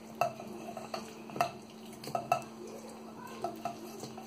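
A steel frying pan and spatula knocking and scraping against the rim of a stainless steel mixer-grinder jar as cooked masala is tipped into it: a string of irregular metallic clinks with short ringing, over a faint steady hum.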